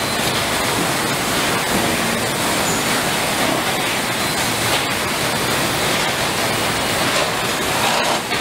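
Steady hiss and hum of a car assembly plant floor, constant throughout, with faint short machine tones in the mix.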